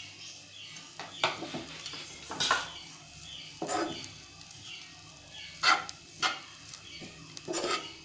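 A stainless steel spoon stirring crumbled bread upma in a non-stick pan, scraping and knocking against the pan about half a dozen times at uneven intervals.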